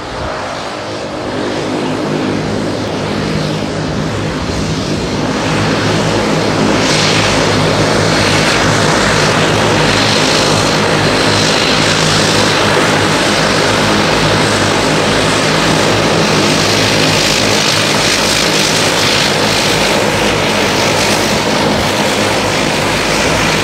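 Dash 8-300 turboprop airliner taxiing, its two turboprop engines and propellers running: a low, steady propeller hum with turbine hiss over it, growing louder over the first several seconds as the aircraft comes closer, then loud and steady as it passes.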